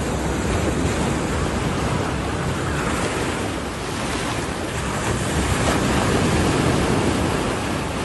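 Small sea waves breaking and washing in over shallow sand, a steady rush of surf that swells a little about five seconds in.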